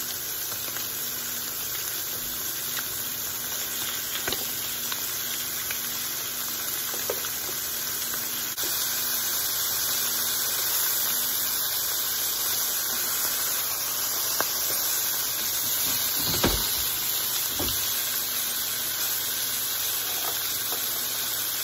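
Chicken leg quarters searing skin-side down in hot bacon grease in a skillet: a steady sizzle that gets a little louder about eight seconds in, with a few light knocks.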